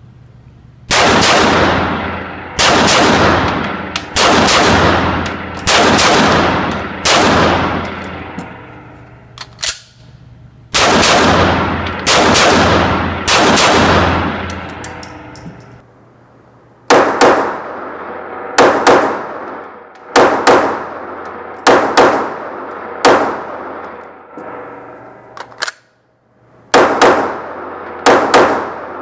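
Arsenal Firearms Strike One 9mm pistol being fired in strings of several shots, each report sharp with a long echoing decay. There are four strings of about three to seven shots, separated by short pauses.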